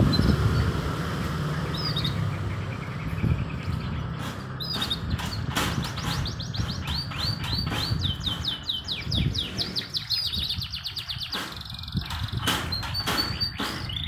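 Caged canaries singing: rapid, repeated chirping trills, with a passing motorcycle fading out at the start.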